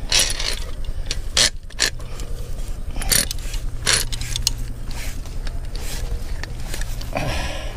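Steel trap chain and rebar stakes clinking and rattling as a gloved hand works a beaver trap into place, with a few sharper metal clanks over a steady low rumble.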